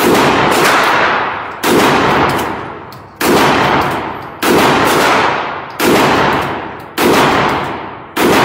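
Kel-Tec KSG pump-action bullpup shotgun fired seven times, about one shot every second and a half, each blast trailing off in the long echo of an indoor range.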